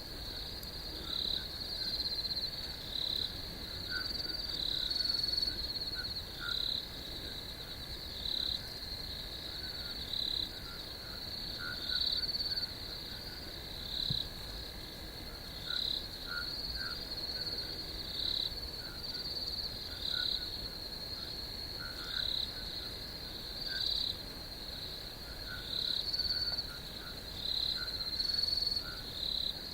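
Night chorus of insects and frogs. A steady high trill runs throughout, with louder short chirps repeating every one to two seconds and fainter, lower short calls in between.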